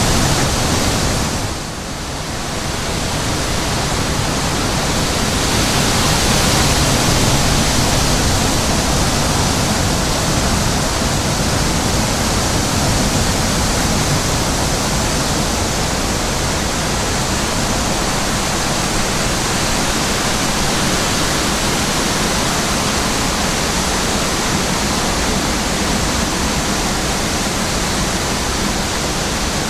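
Steady rushing wind noise over the microphone, with a brief lull about two seconds in.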